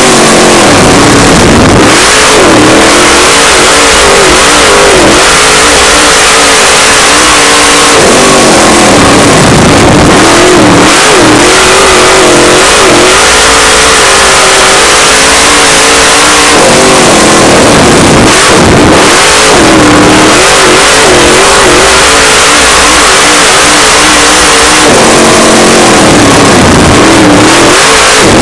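Dirt late model race car's V8 engine running hard at full racing speed, heard loud from inside the cockpit. Its pitch dips and climbs back every several seconds as the throttle is lifted and reapplied around the oval.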